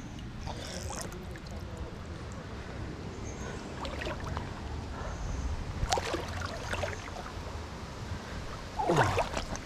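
Shallow river water sloshing and trickling around a wading angler, with a few short splashes; the loudest splash comes near the end.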